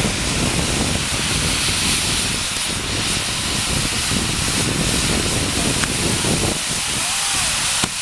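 Hand-held tezutsu tube firework spraying sparks: a loud, steady rushing hiss with a low rumble underneath. The rumble drops away about six and a half seconds in, and a sharp crack comes just before the end.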